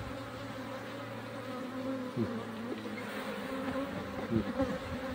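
Honeybees buzzing around an opened hive: a steady low hum, with single bees passing close and sweeping up and down in pitch a few times.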